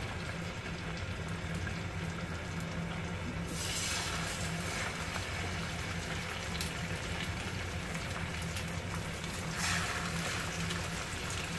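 Oyster, chive and egg batter sizzling in hot oil in a non-stick frying pan as ladlefuls are poured in; the sizzle grows brighter about three and a half seconds in and swells briefly near the end as more batter goes in. A steady low hum runs underneath.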